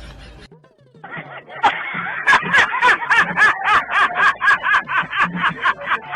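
Laughter, in rapid rhythmic 'ha-ha' pulses about five a second, starting about a second in after the earlier sound cuts off.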